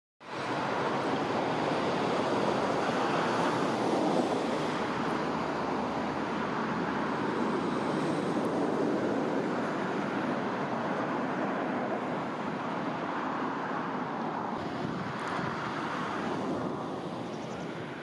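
Steady rushing of river water running through stony shallows, an even hiss with no distinct calls in it, easing slightly near the end.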